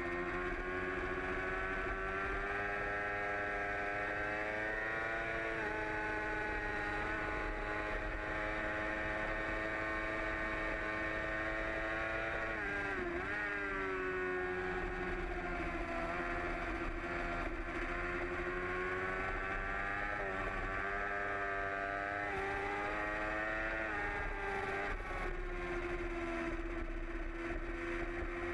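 A 2008 Yamaha R6's 600 cc inline-four engine running hard at high revs on track, heard from the bike itself. Its pitch holds, then shifts with throttle and gear changes, with a sharp dip and quick recovery about halfway through.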